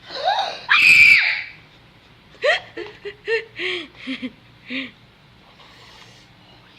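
A high-pitched excited scream lasting about a second, followed by a run of short bursts of laughter.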